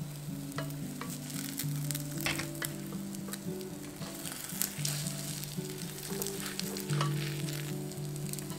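Egg and oil sizzling in a hot rectangular tamagoyaki omelette pan as the pan is oiled with kitchen paper, with scattered light clicks of chopsticks against the pan. Soft background music plays underneath.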